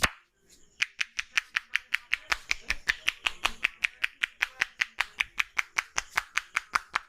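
A barber's hands tapping rhythmically on a customer's head during a head massage: quick, even slaps, several a second, starting about a second in and keeping a steady pace.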